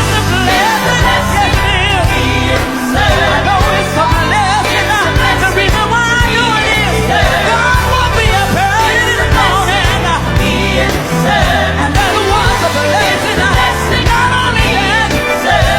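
Gospel song by a vocal group, with lead and backing voices singing over band accompaniment with a steady bass beat.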